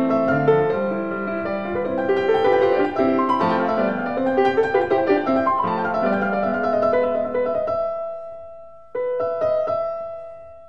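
Background piano music: a light run of notes, then a held chord that fades away and restarts abruptly about nine seconds in.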